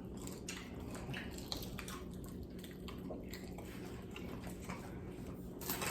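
Faint mouth sounds of people chewing fried chicken feet: scattered small wet clicks, with a sharper click near the end.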